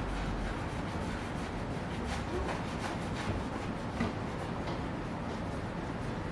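A cloth rubbing fine cutting compound into car paint by hand, a soft scuffing with faint strokes over a steady background hiss.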